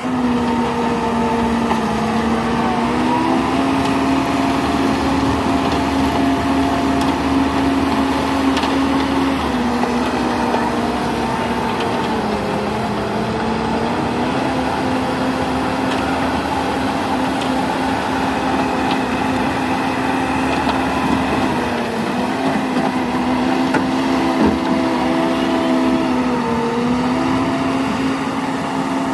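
Heavy construction vehicle's engine and machinery running steadily, with a pitched whine whose pitch dips briefly and comes back a few times.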